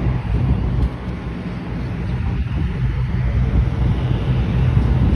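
Diesel engine of a custom Peterbilt 359 semi truck pulling a loaded trailer: a steady low drone that slowly grows louder after about a second in as the truck approaches. Wind rumbles on the microphone.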